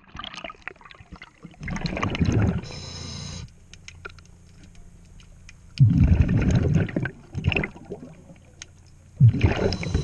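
A scuba diver breathing underwater through a regulator. There are three bursts of bubbling exhalation, about three and a half seconds apart. Just before three seconds in comes a short steady hiss.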